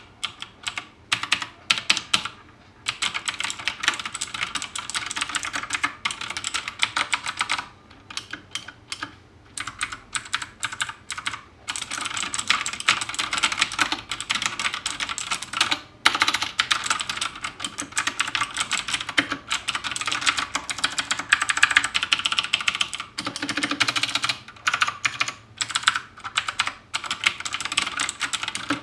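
Fast typing on a mechanical keyboard with Outemu blue switches: a dense stream of sharp, clicky keystrokes with a few short pauses. These switches are super clicky and super noisy, a close copy of Cherry MX blues.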